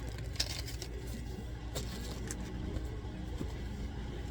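A few light clicks and rustles of small items being handled and rummaged through, over a steady low hum.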